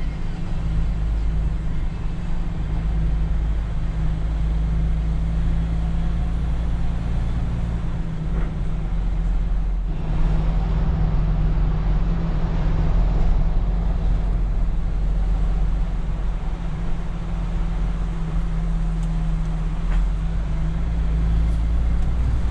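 MAN semi-truck's diesel engine running steadily under way, with road noise, heard inside the cab as a constant low hum.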